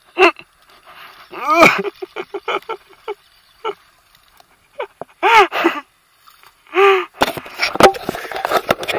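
Four short, loud vocal calls, each rising then falling in pitch, spaced a second or more apart. Sharp knocks and rustling follow near the end.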